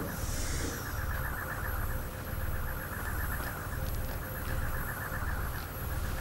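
Steady electronic drone from the sound track: a low hum that swells and fades about once a second under a fast, even pulsing rattle, with a brief hiss just after the start.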